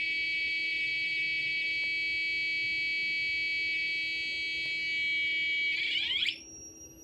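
Steady buzzy high tone from a 555 timer pulser circuit, its pitch set by a potentiometer. Near the end it warbles and sweeps as the knob is turned, then drops to a faint thin whine that rises higher.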